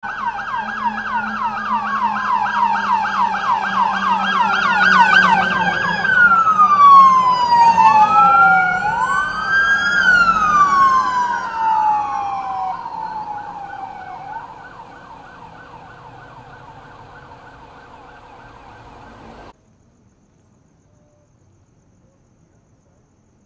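Several police vehicle sirens sounding together, first in a fast yelp and then in slow rising-and-falling wails, loudest in the middle and fading away as they pass. The sound cuts off suddenly a few seconds before the end.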